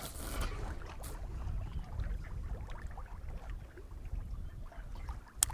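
Low, uneven rumble of wind and water against a small boat's hull, with a brief rush of noise at the start, a faint click about a second in and a sharp click near the end.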